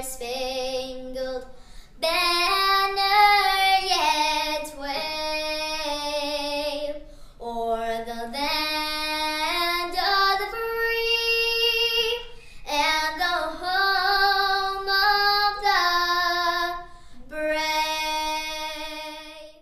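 A woman's voice singing a slow song in long held notes, phrase after phrase; the singing stops abruptly near the end.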